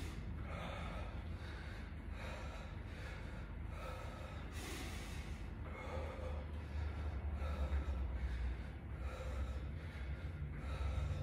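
A man breathing hard and fast, out of breath from a round of burpees: quick, noisy breaths repeating about every half to three-quarters of a second.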